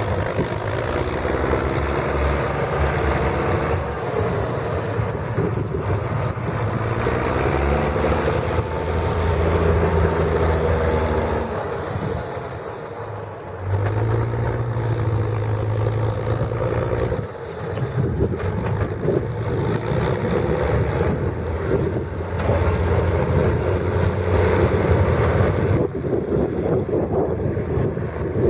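International 1455 XL tractor's six-cylinder diesel running through a straight-pipe stainless exhaust, its revs rising and falling several times. Near the middle it drops back, then revs up sharply again.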